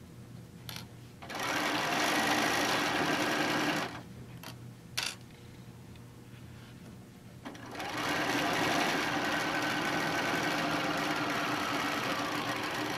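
Electric sewing machine stitching a quarter-inch seam through layered fabric, in two runs: it starts about a second in and stops after about four seconds, a single click sounds in the pause, and it runs again steadily from about eight seconds on.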